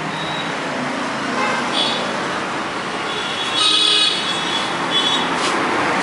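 Steady background noise of road traffic, with a short high-pitched horn toot a little over three and a half seconds in.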